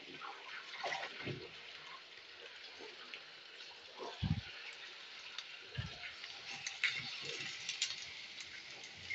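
Chicken pieces deep-frying in hot cooking oil in a steel wok: a steady sizzle with crackling, and a few dull knocks from a spatula stirring them, the loudest about four seconds in.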